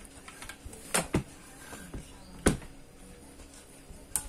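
Handling knocks from amplifier parts being moved in an open metal amplifier chassis: a handful of short, sharp knocks, the loudest about two and a half seconds in.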